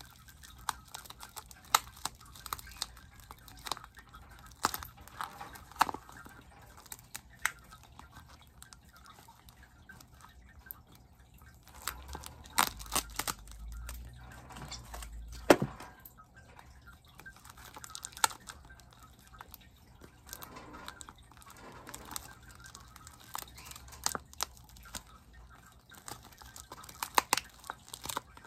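Plastic bag and packing paper crinkling and rustling in irregular crackles as a potted plant is unwrapped by hand, with a sharp knock about halfway through.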